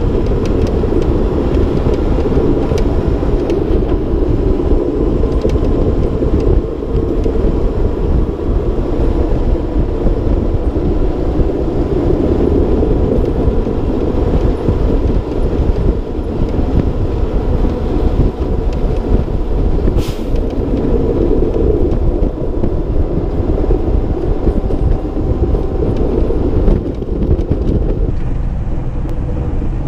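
Mack Granite diesel plow truck driving with its wing plow down, heard from outside the cab: a loud, steady rumble of engine, wind and snow rushing off the plow.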